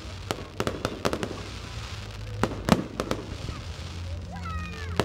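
Fireworks display: aerial shells going off overhead in an irregular run of about ten sharp bangs, the loudest a little past the middle.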